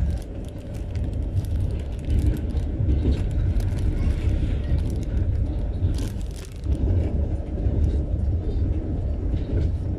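Low rumble of a passenger train under way, with faint scattered clicks and clatter over it.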